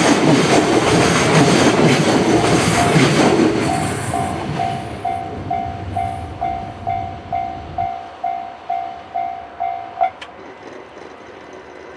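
A freight train's wagons clatter over the rail joints and then fade away as the train recedes about four seconds in. Over it, the level crossing's warning bell rings about twice a second. The bell stops suddenly about ten seconds in, which means the crossing is clearing after the train has passed.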